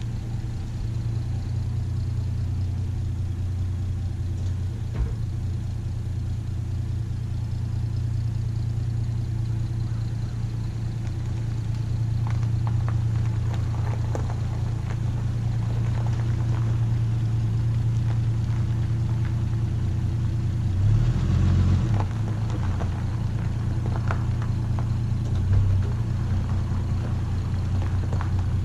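Plymouth Valiant's 225 slant-six engine running steadily as the car backs slowly out of the garage, with a short rise in revs about three quarters of the way through. The owner thinks the engine is due a valve adjustment for a slight sputter at idle.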